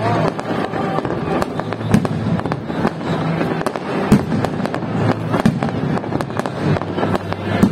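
Aerial fireworks display: dense, irregular crackling and popping from crackle-effect stars, with louder bangs of bursting shells about two seconds in, about four seconds in, and near the end.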